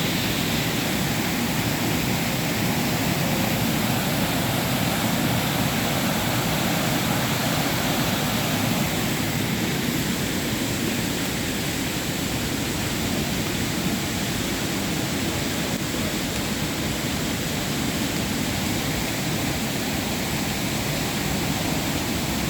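Steady rush of water from a waterfall and fast-flowing stream, an even noise that does not change.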